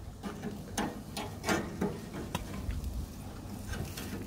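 Metal barbecue tongs clicking and clinking against the grill grate and each other while turning fish on a barbecue: a few sharp, irregularly spaced clicks.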